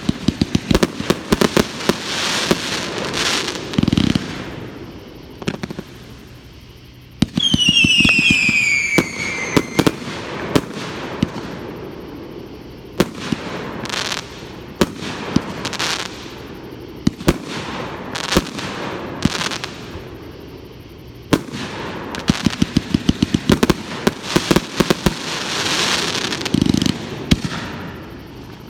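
Fireworks going off: rapid strings of sharp pops and crackles with a few deeper bangs. About seven seconds in, a shrill whistle falls in pitch over a couple of seconds.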